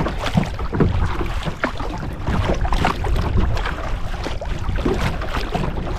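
Choppy lake water lapping and splashing against a kayak's hull in irregular little slaps, over a steady low rumble of wind buffeting the microphone.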